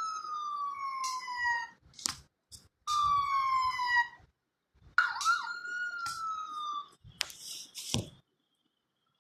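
Siren sounding in short wails, each falling in pitch and cut off abruptly: three in all, with sharp clicks in the gaps. A few sharp knocks follow near the end, then silence.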